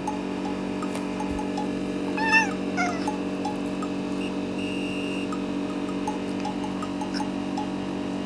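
Domestic cat giving two short meows about two seconds in, begging for more food.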